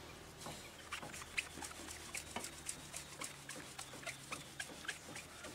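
Foam applicator pad rubbing scratch-remover compound into a car door's paint, making a quick irregular run of light squeaks and taps.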